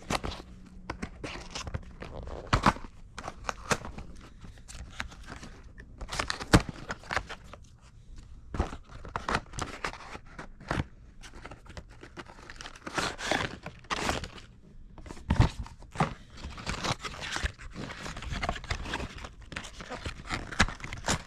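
Product packaging being opened and handled by hand: cardboard and plastic crinkling and tearing, with scattered knocks and clicks as the box and its contents are moved about.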